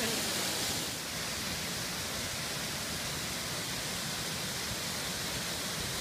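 Steady rushing of a waterfall, an even hiss that dips slightly in level about a second in and then holds.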